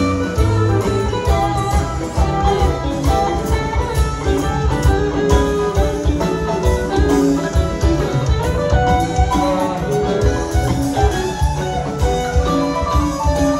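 Live rock band playing an instrumental jam: electric guitar lines over drums, bass guitar and keyboards, heard from the audience in a concert hall.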